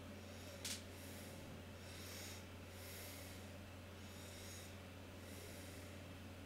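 Faint microphone room noise with a steady low electrical hum and soft breaths into the microphone, coming and going every second or so. A single sharp click sounds under a second in.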